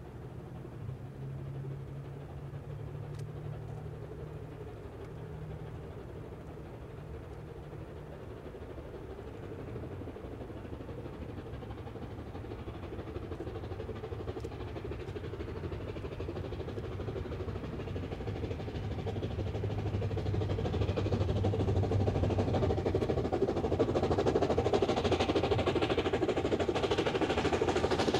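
Three-cylinder BR Class 8P steam locomotive Duke of Gloucester working hard up a long gradient with a passenger train, its exhaust and running noise growing steadily louder as it approaches.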